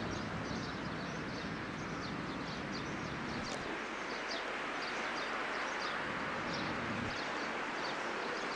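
Small birds chirping over a steady outdoor hiss, short high chirps several times a second.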